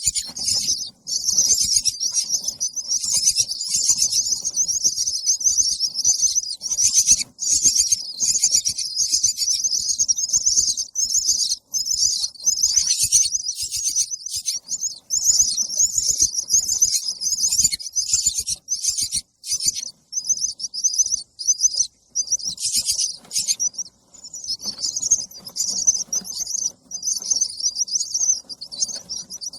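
Baby birds begging for food: rapid, high-pitched chirping that runs almost without a break, stopping only for brief moments.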